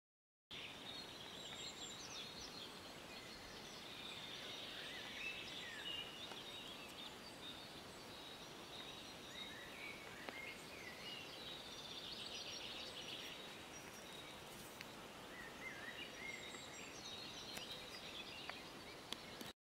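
Spring birdsong: several songbirds singing at once, with overlapping chirps, trills and quick whistled glides over a faint steady hiss. It starts abruptly about half a second in and cuts off just before the end.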